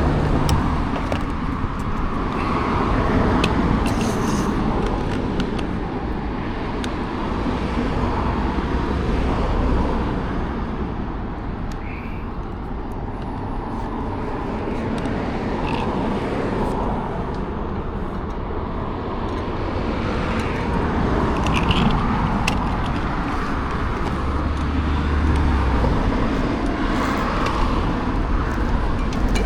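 Road traffic noise: cars passing in swells over a steady rumble, with a few small clicks.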